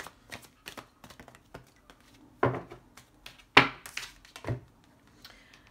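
Oracle cards being shuffled and handled while one is drawn from the deck: a run of soft clicks and flicks, with three louder clicks about two and a half, three and a half and four and a half seconds in.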